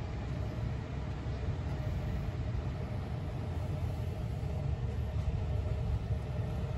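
Steady low background rumble with a faint constant hum above it; no distinct events.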